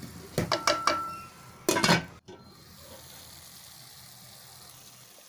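Spatula clinking and scraping against a steel pan while chopped green vegetables are stirred, a quick run of sharp knocks with a brief ringing tone in the first two seconds. After a break, a faint steady sizzle of the vegetables frying.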